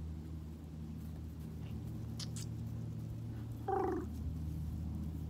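A duck gives a short, rattling call about three-quarters of the way through. A steady low hum runs underneath.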